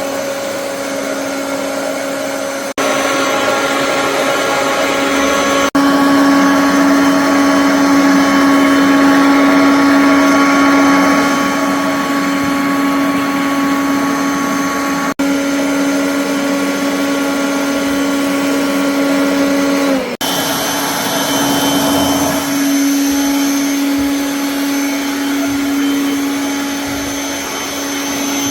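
Kirby vacuum cleaner running steadily with a constant motor whine, broken by a few very brief gaps.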